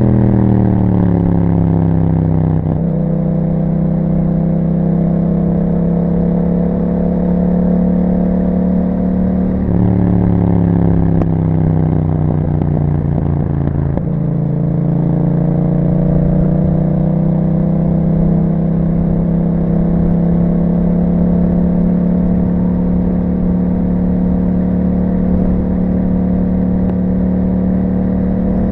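Yamaha MT-07 parallel-twin engine through an Akrapovic exhaust, with the revs falling off over the first few seconds. The engine picks up and drops again briefly around ten seconds in, then the revs climb slowly and steadily through the rest as the bike pulls along.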